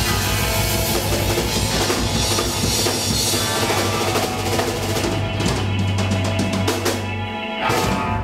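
Live instrumental funk-rock band with saxophone, electric guitars, bass and drum kit playing the stop-time ending of a shuffle. The full band plays for the first few seconds. From about five seconds in it breaks into separate accented hits on the drums with the band, then a held low note, and a final hit near the end.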